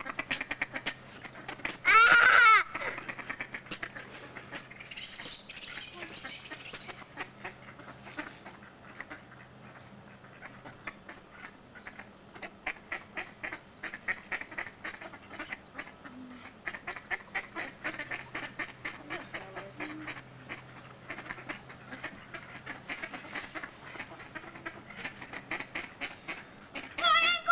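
A flock of ducks quacking and chattering continuously, with one loud high call about two seconds in and another near the end.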